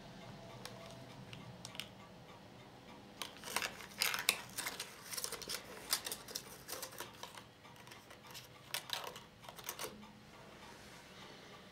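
Ania 5 filmstrip projector being wound on to the next frame: a run of irregular clicks and rattles from the advance mechanism, starting about three seconds in and ending near the end, over a steady low hum.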